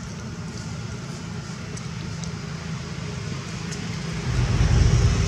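Low, steady rumble of a motor vehicle engine, growing louder about four seconds in.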